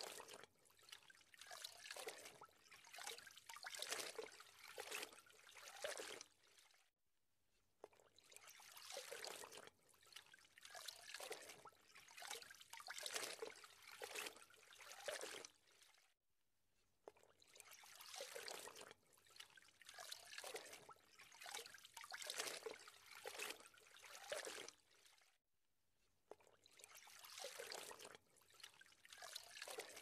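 Faint trickling, splashing water, in stretches of about nine seconds that each break off sharply into a brief near-silent gap before the water sound resumes.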